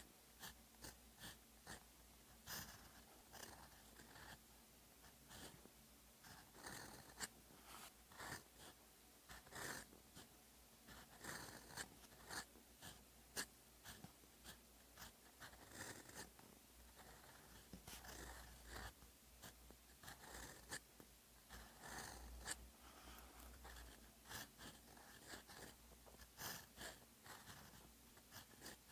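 Fountain pen nib scratching across paper, writing Hangul one short stroke at a time, with brief pauses between strokes and letters.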